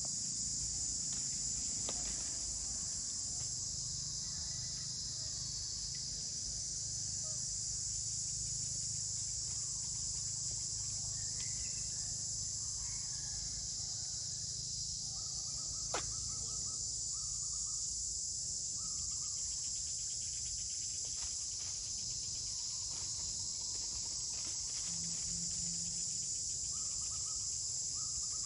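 Steady, high-pitched chorus of insects droning without a break, with a few faint short calls now and then and a single sharp click about sixteen seconds in.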